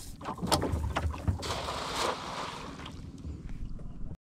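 A cast net being gathered and handled aboard a small boat: several sharp knocks against the hull in the first second and a half, then a soft rushing hiss that fades.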